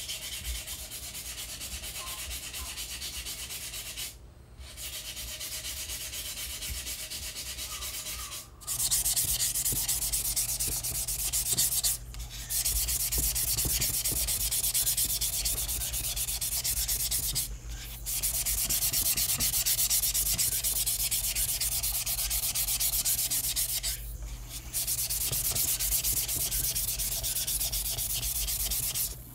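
Hand sanding of a glazed ceramic pot: fast back-and-forth strokes of sandpaper scratching over the glossy glaze to take it down to a matte surface like sea glass. The scratching stops briefly several times and grows louder about nine seconds in.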